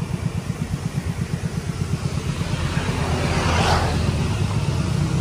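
Diesel engine of an Isuzu Borneo truck idling close by, a steady low rapid throb. A brief hiss rises over it about three and a half seconds in.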